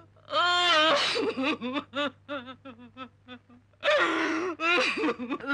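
Elderly woman wailing and sobbing in grief: a long wavering cry, then a string of short gasping sobs, then two more loud anguished cries near the end.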